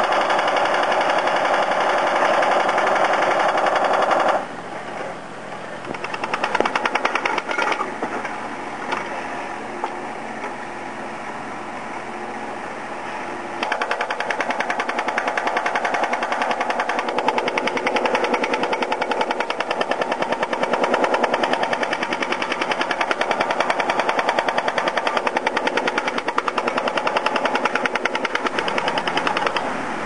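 A mini excavator's hydraulic breaker hammering in rapid, steady blows at concrete that has set hard inside a mixer truck's drum. The blows ease off into a quieter, patchier stretch after about four seconds, then come back steady and loud from about halfway through.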